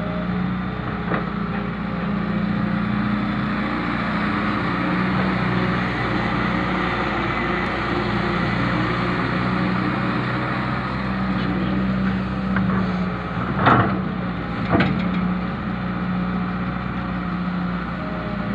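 John Deere 595D hydraulic excavator at work, its diesel engine running steadily with the note rising and falling under load. Two sharp knocks about a second apart stand out later on.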